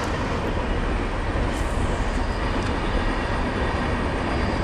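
Steady wind rumble buffeting the camera's microphone outdoors, an even noise heaviest in the low end.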